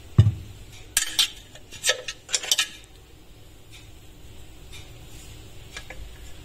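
A metal spoon clinking against a drinking glass about six times in quick succession as a scoop of ice cream is added to a milkshake, after a soft low thump at the start. A few faint ticks follow.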